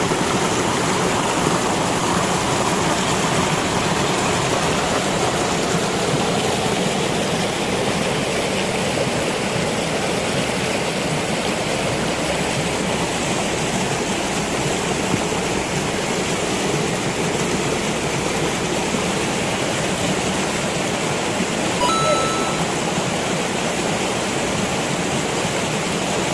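Fast-flowing river water rushing steadily, with a brief high-pitched tone near the end.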